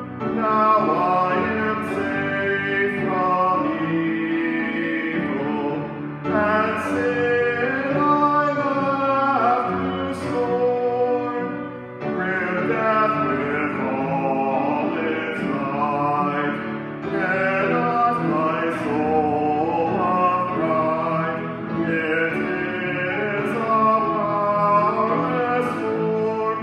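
A hymn sung by a voice over instrumental accompaniment, in phrases of about five or six seconds with short breaks between them.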